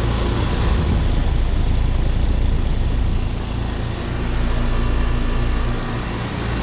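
Outdoor condensing unit of a 2015 five-ton Trane central air conditioner running: steady compressor and condenser-fan noise, with a low hum that becomes clearer about four seconds in.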